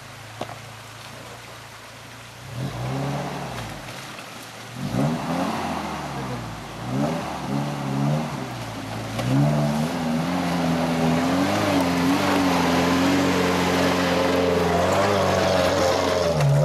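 Suzuki Vitara engine idling, then revved in repeated rising and falling bursts as it crawls over rocks under load. From about ten seconds in it is held at steady high revs.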